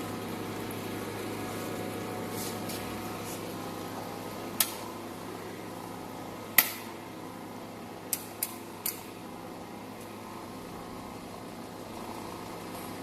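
EDM hole-drilling machine running with a steady electrical hum. Five short sharp clicks sound through the middle, the last three close together.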